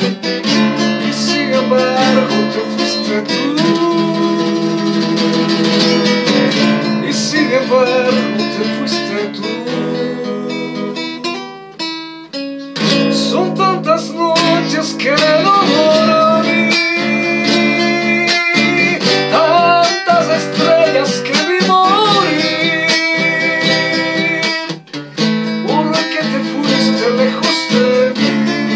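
Acoustic guitar strumming and picking an instrumental passage of a romantic Latin American ballad, with a gliding melody line over it. The music thins out briefly about twelve seconds in.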